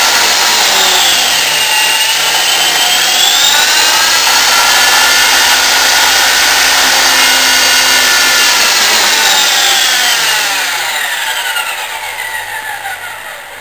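Electric RC model helicopter's motor and rotor running on the ground: a whine made of several tones that dips and comes back up in pitch about two seconds in, then holds steady. Over the last few seconds it falls in pitch and fades as the rotor spools down.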